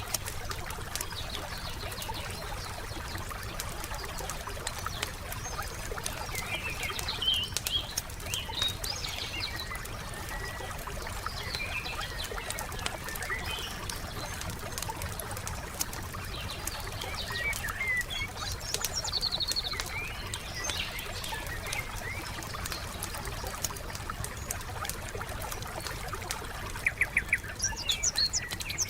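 Wood fire crackling with scattered small pops, while forest birds chirp and call now and then. A quick run of louder clicks comes near the end.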